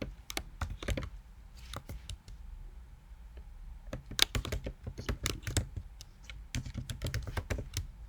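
Typing on a computer keyboard: irregular bursts of quick keystrokes with short pauses between, the densest runs about four to six seconds in and again near seven seconds.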